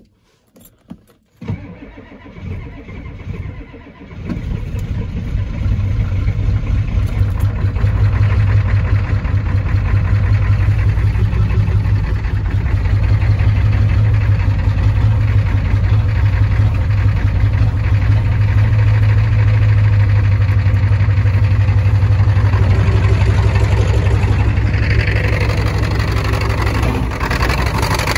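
1993 Ford F-250's 7.3 IDI V8 diesel cold-starting: it cranks unevenly for a couple of seconds, catches about four seconds in, and settles into a steady, loud low idle. A hard cold start after sitting over a month in freezing weather, which the owner puts down to a weak battery and possibly a few burnt-out glow plugs.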